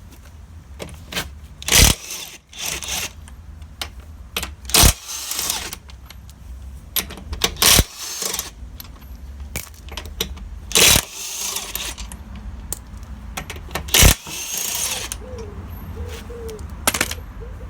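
Front wheel nuts being undone on a 2008 Ford Transit: five short bursts of tool noise about three seconds apart, each a sharp crack followed by a second or so of hissing rattle, over a steady low hum.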